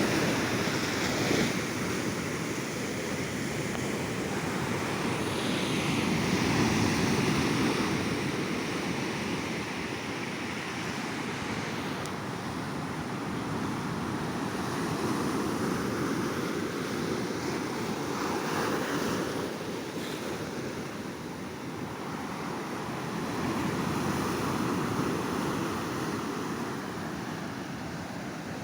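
Sea waves breaking and washing up on a beach, a continuous surf noise that swells and eases every several seconds, with some wind on the microphone.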